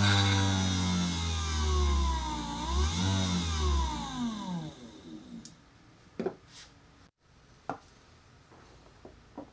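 Mini drill press's DC drill motor slowing as its PWM speed controller is turned down, briefly speeding up and slowing again, then spinning down to a stop. A faint high whine cuts off about halfway, and a few light clicks follow.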